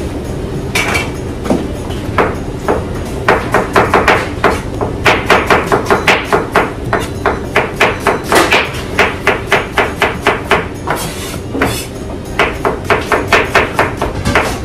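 A long run of hard, rapid blows, about three a second, louder and faster in the middle, over a steady background hum.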